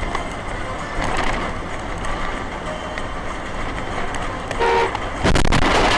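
Steady road-vehicle rumble, a short horn toot about four and a half seconds in, then a sudden loud impact of a vehicle collision.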